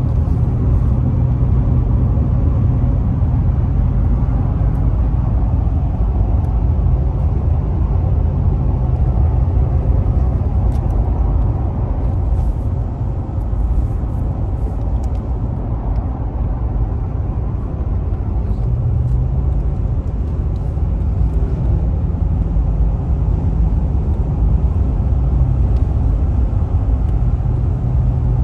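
Steady low road and engine rumble of a moving car, heard from inside the cabin. A low hum in it weakens for a few seconds around the middle, then returns.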